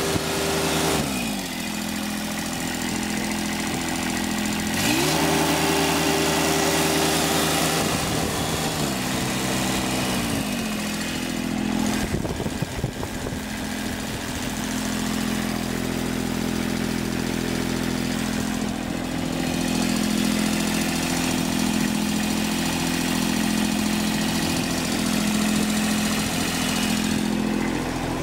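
Kubota D1105 three-cylinder diesel engine of a Jacobsen LF1880 fairway mower running. Its speed drops about a second in, rises again around five seconds and falls back near ten seconds, then it idles steadily, with a few knocks around twelve seconds.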